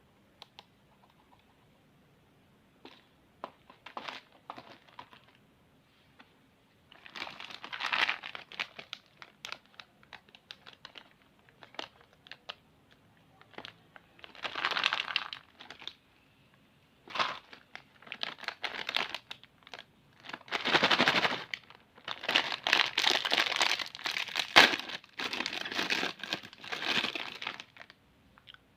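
Plastic candy and snack wrappers being crinkled and torn open by hand, in irregular bursts of rustling that grow louder and more continuous in the last third.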